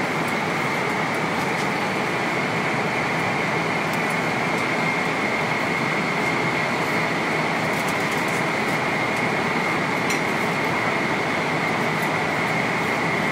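Steady in-flight cabin noise inside a Boeing 777-300ER: an even rush of air and engine noise with a thin high whine running through it. A few faint clicks sound over it.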